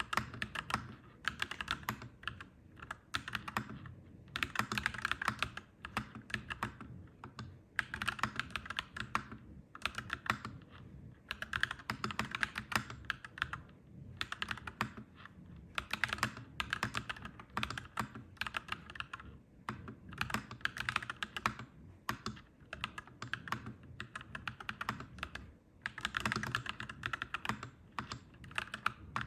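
Clacky mechanical keyboard typing in runs of fast keystrokes broken by brief pauses.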